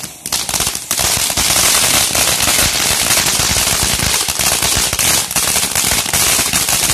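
Flutterby ground fountain firework spraying sparks: a loud, dense crackling hiss full of rapid pops that swells about a second in and keeps up steadily.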